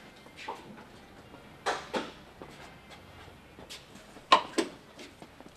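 Two pairs of sharp knocks, the two in each pair about a third of a second apart, with a few fainter ticks between them.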